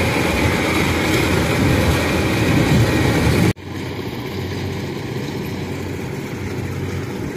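Small tracked rice combine harvester running steadily with a low engine hum and the noise of its working machinery. About three and a half seconds in, the sound breaks off abruptly and resumes as a somewhat quieter, steady run of the same machine.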